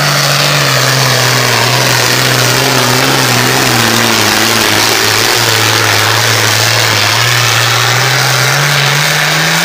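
A 9300 lb Super Farm pulling tractor's turbocharged diesel engine running at full power under heavy load as it pulls the sled down the track. The engine note sags a little through the middle and climbs again near the end.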